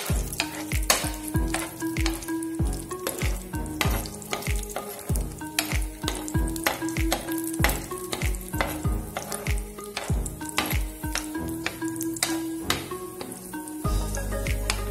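Cashew nuts and raisins sizzling as they fry in oil in a pan, with a metal spoon stirring and clicking against the pan several times a second.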